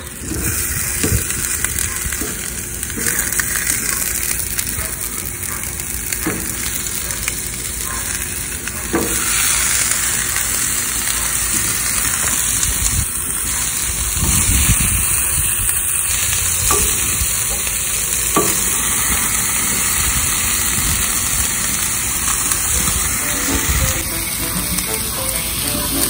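Olive oil and vegetables sizzling on a hot Blackstone flat-top griddle set to high heat: a steady frying hiss with a few light knocks as pieces are set down.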